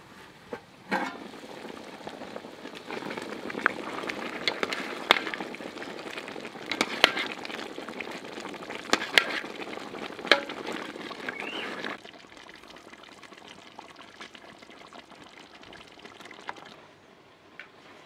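Metal lid lifted off a large aluminium pot, then a thick walnut stew bubbling as a ladle stirs it, with sharp knocks and scrapes of the ladle against the pot. About twelve seconds in the stirring stops and a fainter steady hiss remains.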